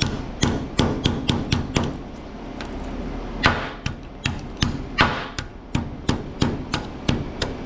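Irregular sharp knocks and clanks of hand tools striking metal scrap equipment as it is broken apart for its circuit boards, about a dozen blows, a few of them trailing into short scrapes.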